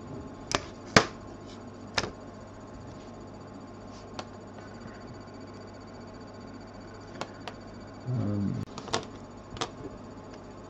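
Scattered light clicks and taps of small plastic model parts and tools being handled and set down on a cutting mat, about eight in all, the loudest about a second in. A short murmur of the builder's voice comes around eight seconds in, over a steady low hum.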